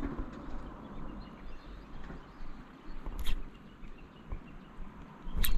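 Wind rumbling on the microphone outdoors, with two short sharp clicks: one about three seconds in, the other just before the end.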